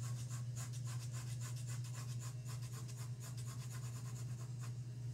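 Graphite pencil shading on drawing paper: quick back-and-forth strokes, about five a second, over a steady low hum.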